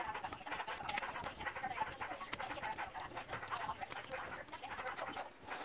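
Birds calling steadily in the background, with scattered light crackles from plastic adhesive tape being peeled by hand.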